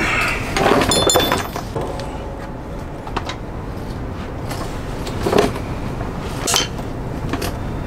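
A few sharp metal clicks and clinks with a brief metallic ring about a second in, from small hardware on a motorcycle's exhaust-flange locking bolt being handled and seated, with single clicks later on. A steady background noise runs underneath throughout.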